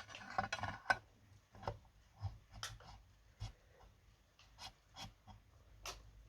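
Chainsaw parts and tools handled on a workbench: a string of faint clicks and taps, several close together in the first second, then one every half second or so.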